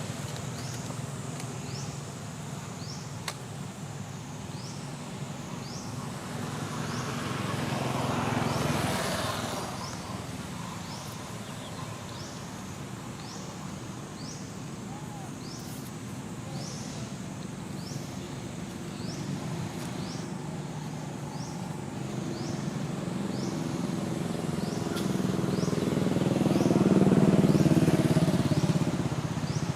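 Motor vehicles passing over a steady low hum: one swells up and fades about eight seconds in, and a louder one passes near the end. A short high chirp repeats about once a second throughout.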